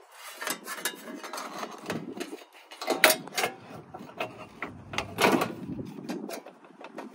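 Hands working the plastic air-intake parts in a car's engine bay: irregular clicks, knocks and rattles of plastic, with the loudest clunks about three seconds in and again a little after five seconds.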